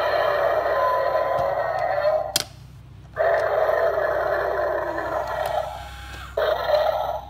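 Godzilla coin bank's small built-in speaker playing tinny electronic sound effects while its motorised lid and Godzilla figure work. The sound cuts out for under a second a little over two seconds in, then resumes.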